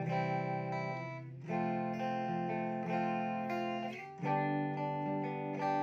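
Background music: acoustic guitar playing sustained strummed chords that change about every second and a half.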